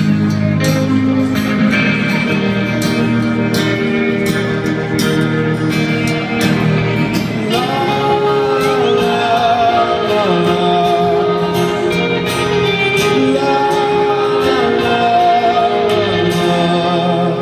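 Live acoustic guitar strumming with a man singing, amplified in a large arena hall. The strums stand out at first; from about halfway through the voice holds long, wavering notes over the guitar.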